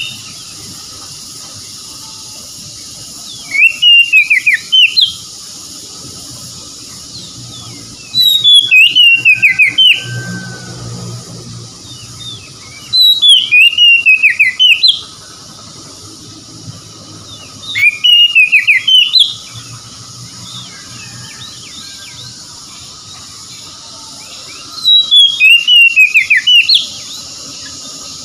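Oriental magpie-robin (kacer) singing: five loud whistled phrases, about five seconds apart, each a quick run of notes falling in pitch.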